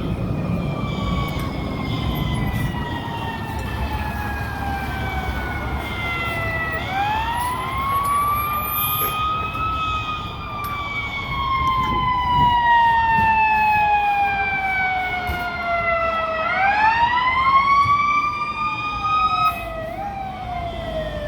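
Fire truck siren on a responding fire apparatus, its pitch falling slowly for several seconds and then winding quickly back up, twice, over the rumble of passing traffic.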